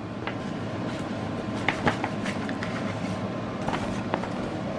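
Faint, scattered light clicks and taps from hands handling a cross-stitch kit, over a steady low room hum.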